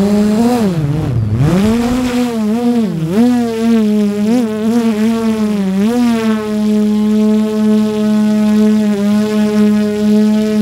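DJI Air 3 quadcopter's motors and propellers whirring, heard close up from a camera mounted on the drone. The pitch swoops down and back up several times as the throttle changes, deepest about a second in, then holds a steady hum for the second half.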